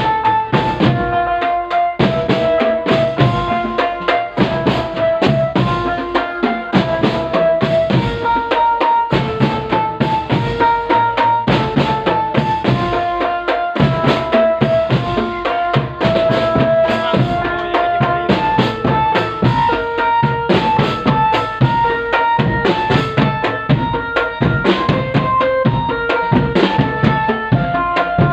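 Drum band music: many drums, bass and snare among them, beating a dense, continuous rhythm under a melody of held notes that steps between a few pitches.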